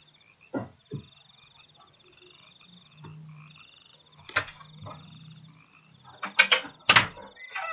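A background animal chorus: a steady, high-pitched pulsing trill with a fainter low hum for a couple of seconds midway. Several short sharp sounds cut through it, the loudest two near the end.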